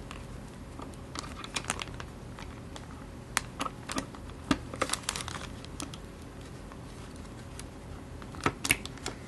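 Irregular small clicks of metal pistol parts being handled and fitted, with light crinkling of a plastic bag the work is done inside.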